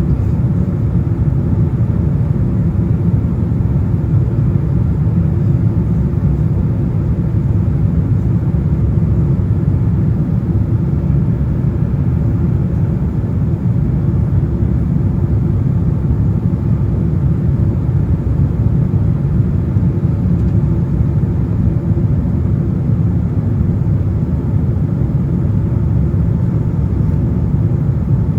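Cabin noise inside a Boeing 767-400 in flight on its landing approach: a steady, even low rumble of the engines and airflow past the fuselage, with no sudden changes.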